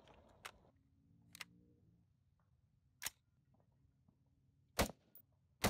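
Three rifle shots from a 14.5-inch Colt SOCOM AR-15 with a bare muzzle, firing 5.56 M193: short sharp cracks about three seconds in, then two more close together near the end, the last the loudest. Two fainter clicks come before them.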